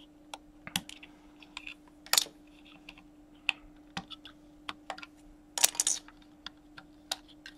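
LEGO car being pulled apart by hand: irregular sharp clicks and snaps of plastic bricks and plates unclipping, with a louder snap about two seconds in and a cluster near the end. A faint steady hum lies underneath.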